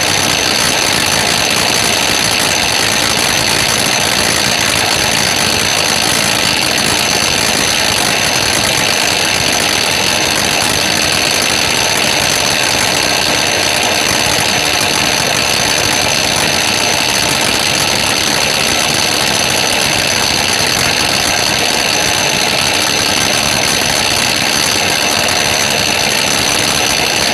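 Hitachi SF-160KJS top-loading washing machine's drive running under the tub, with the motor, belt and clutch pulley spinning: a loud, steady mechanical whirr with a high whine in it. This is the very loud noise the machine makes at the end of its spin-dry.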